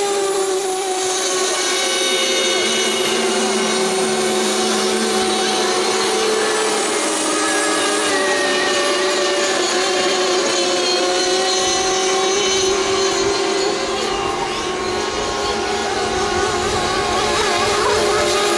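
Several radio-controlled FSR-O 7.5 racing boats running flat out, their small two-stroke glow engines whining at high revs. Several engine notes overlap, some rising and falling in pitch as the boats pass and turn.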